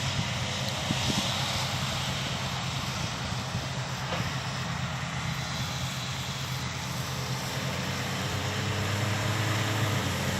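Steady engine drone of a Claas Lexion combine harvester at work, with the diesel of an approaching grain-cart tractor; the drone grows slightly louder near the end.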